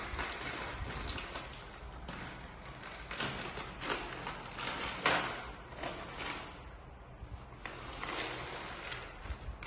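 Plastic snack packet crinkling and rustling in the hands as it is torn open and handled, in irregular bouts.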